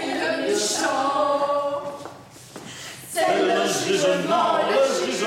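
Amateur choir singing a cappella; the voices break off for about a second near the middle and then come back in together.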